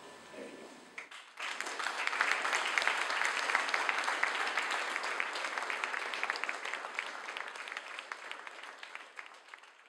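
Audience applauding, starting about a second and a half in and slowly dying down toward the end.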